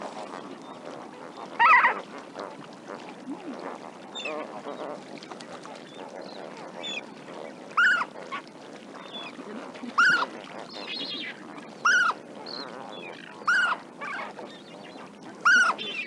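Lesser flamingo flock calling: a steady chatter of many quieter calls, with six loud honks from individual birds, one about two seconds in and the rest roughly every two seconds through the second half.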